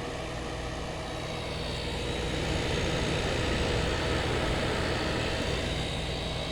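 Outdoor side of a GE Fashionette 6000 window air conditioner running with a steady hum and fan noise, growing a little louder midway and then easing back.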